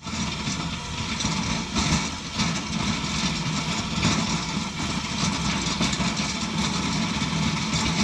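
Heavy snowplow machine's engine running steadily under load as its V-shaped blade pushes snow along a road, with a constant rushing noise.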